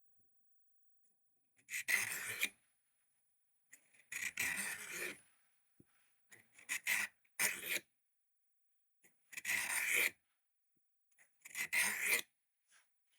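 Pocket knife blade drawn across the abrasive of a cheap handheld Work Sharp-style sharpener, in about six separate rasping strokes with short pauses between them.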